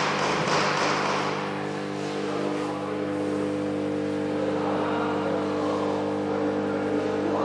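Induction heater running as it heats an aluminum motor housing for fitting: a steady electrical hum made of several unchanging tones under a hiss. A rhythmic high hissing fades away in the first second or so.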